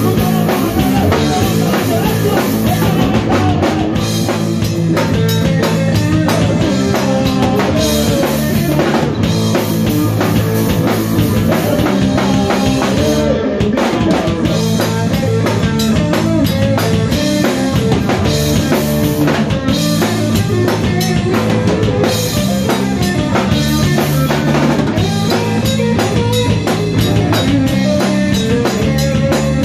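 Rock band playing loud and live: electric guitar, bass guitar and a drum kit with a driving bass drum, going without a break.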